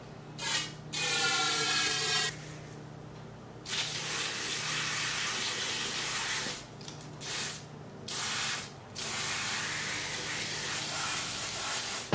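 Aerosol solvent cleaner sprayed through a straw nozzle in about six hissing bursts, some brief and others lasting a few seconds, degreasing disassembled steel rifle parts.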